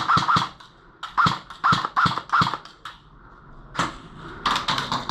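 Airsoft guns firing single shots in quick succession: a string of sharp snaps about 0.4 s apart, a lone shot just before four seconds in, and another quick cluster near the end.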